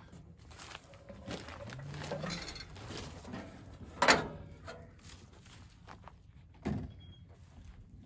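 Lippert Solid Step metal RV entry steps being folded up and stowed by hand. Quiet metal handling noises are followed by one sharp clank about four seconds in as the steps settle into place, then a duller knock later on.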